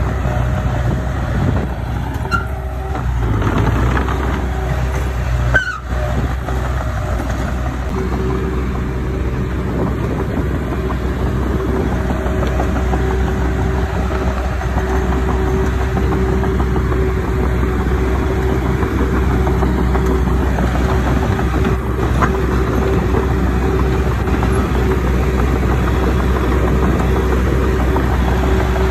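Diesel engine of earthmoving machinery running steadily under work, a constant low drone with a steady whine above it. A very brief break comes about six seconds in.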